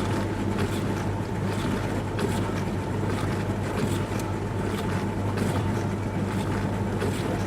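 Dishwasher running mid-cycle: a steady low motor hum under water spraying and splashing inside the tub, with irregular soft splashes.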